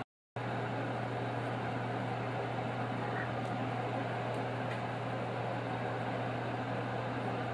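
Steady motor hum under an even hiss: a small fan running, after a brief dropout at the start.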